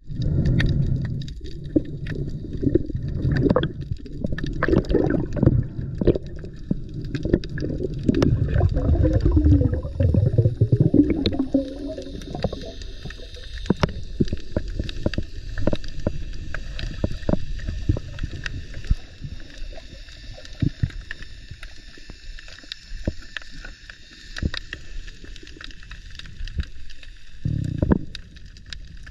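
Underwater water sound from a night dive: heavy gurgling and churning for roughly the first twelve seconds, then quieter, with scattered sharp clicks throughout.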